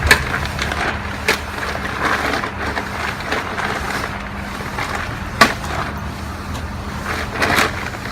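Feed mixer running with a steady hum while tumbling a dry load of fish meal, ground cassava and rice bran, with a few sharp knocks, one near the start, one about a second in, one about five seconds in and one near the end.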